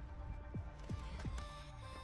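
Background electronic dance music with a pulsing kick drum beat.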